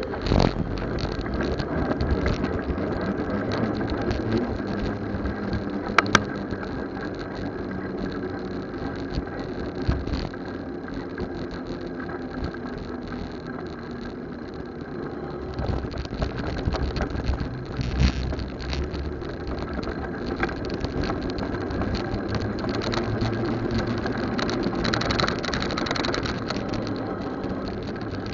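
Riding noise from a camera mounted on a fat bike in traffic: a steady rushing, rattling hiss of tyres and mount, with motorcycle engines of nearby traffic. A sharp click comes about six seconds in and a knock near eighteen seconds.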